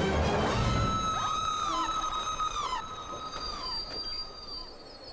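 Train wheels and brakes screeching on the rails: several overlapping high metallic squeals that slide down in pitch and die away over about four seconds, leaving a thin high whine near the end.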